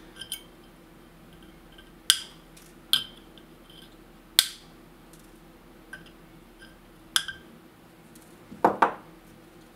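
Side cutters snipping off the ends of 0.6 mm tinned copper wire pushed through the vias of a home-made copper PCB: a series of sharp metallic snips a second or two apart, with a duller knock near the end.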